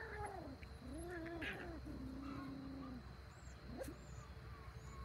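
Schnoodle puppies whining: about four short whimpers that rise and fall in pitch in the first three seconds, the last one drawn out a little longer.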